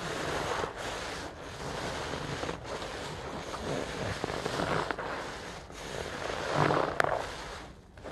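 A soapy sponge being squeezed and worked by a rubber-gloved hand in a tub of thick suds: wet squelching and sloshing of foam and water that swells and eases, loudest near the end, with one sharp click about seven seconds in.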